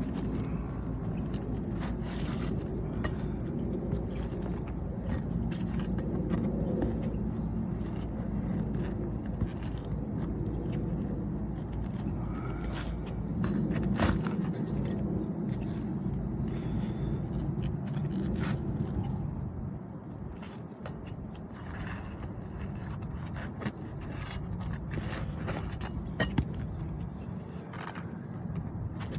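Steel pry bar scraping and clicking against brittle old asphalt shingles as roofing nails are pried loose, over a steady low rumble.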